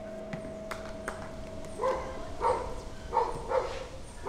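A dog barking about five times from about two seconds in, over a faint steady hum.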